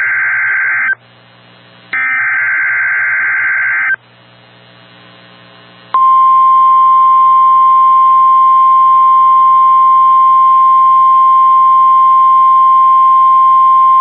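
NOAA Weather Radio emergency alert: SAME digital header bursts, a raspy warbling data tone for about the first second and again from about two to four seconds in, with radio hiss between. About six seconds in, the steady single-pitch 1050 Hz warning alarm tone starts and holds.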